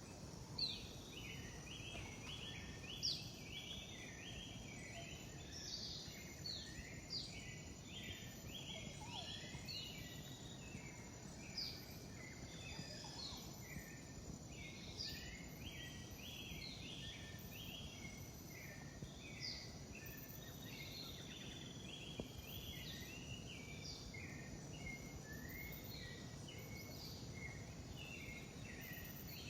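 Rain forest animal chorus: many short chirping calls overlapping without a break, over a steady high-pitched hum and a low background hiss.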